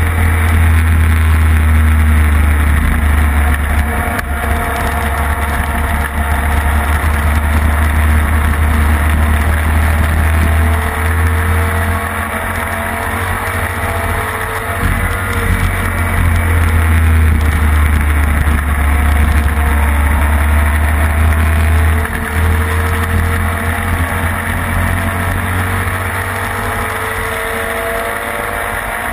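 Classic racing sidecar outfit's engine running hard on a track lap, heard from the machine itself, under a heavy low rumble of wind on the microphone. The engine note rises and falls with the throttle and gears, easing off briefly about twelve seconds in and again about twenty-two seconds in.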